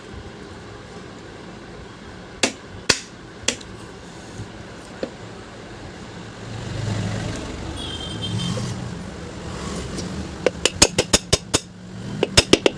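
Sharp metal clicks and taps from ceiling fan parts being handled and fitted together during reassembly: a few single clicks in the first few seconds, then quick runs of clicks near the end. A steady low hum sits underneath.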